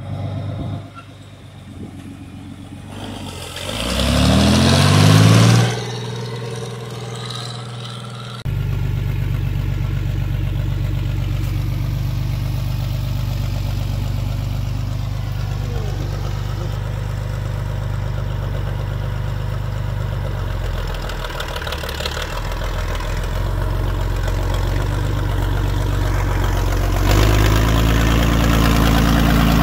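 John Deere tractor engine pulling a row cultivator through corn. It revs up with a rising pitch about four seconds in, then runs steadily under load. The sound jumps abruptly twice, about eight seconds in and near the end.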